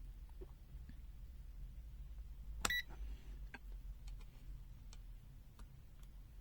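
A single short electronic beep from the Prokit MT1280D multimeter about three seconds in, followed by a few faint light clicks, over a steady low hum.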